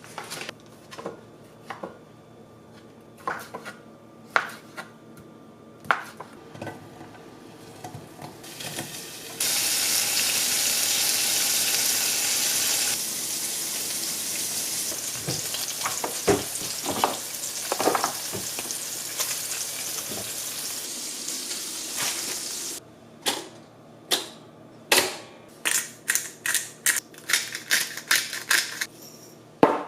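Kitchen cooking sounds: scattered clicks and knocks of utensils, then food sizzling in a frying pan for about thirteen seconds, a steady hiss that stops suddenly, followed by a quick run of sharp taps and clicks.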